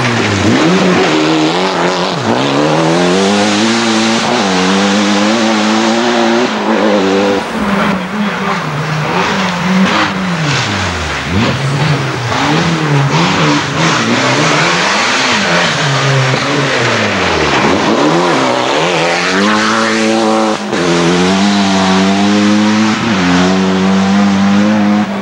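Mitsubishi Lancer Evolution rally car's turbocharged 4G63T four-cylinder engine running hard on a gravel stage, its revs climbing and falling again and again through gear changes, dropping low twice in the middle before pulling back up.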